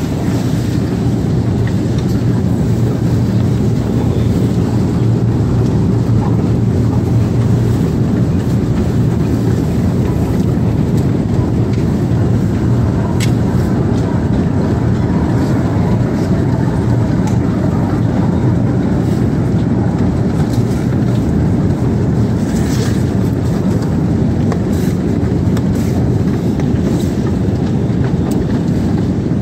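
Escalator running: a steady, low mechanical hum with a faint tick now and then.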